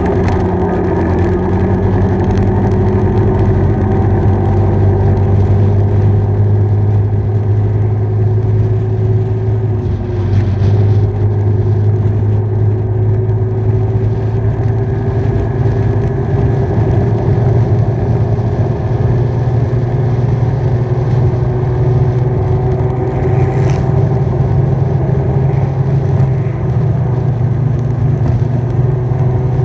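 Motorcycle engine running at a steady cruising speed while being ridden, with wind rush over the bike. The engine eases off briefly about ten seconds in, then its pitch climbs slowly as it picks up again.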